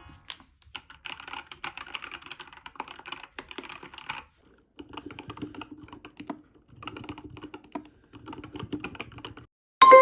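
Fast typing on a ZIYOULANG K68 mechanical keyboard: a dense run of key clacks, a brief pause about four seconds in, then a second run. A bright chime sounds just before the end.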